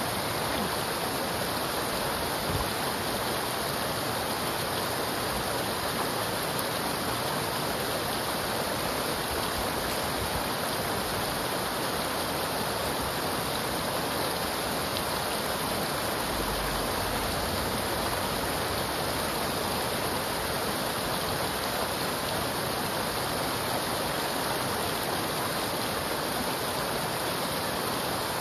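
Floodwater rushing steadily down a swollen creek, an even rush with no single splashes standing out.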